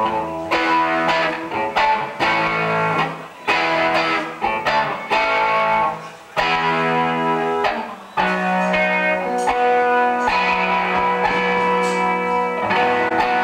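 Electric guitar strumming a run of chords, each left to ring for a second or two before the next is struck, as a sound-check warm-up.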